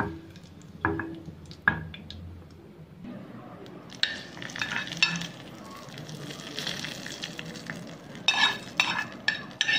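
Dried red chili, curry leaves and cumin frying in hot oil in a small pan, with a few sharp spoon clicks against the pan. About four seconds in the hot tempering is spooned out onto yogurt: sizzling and hissing, with the spoon scraping and clinking on the pan near the end.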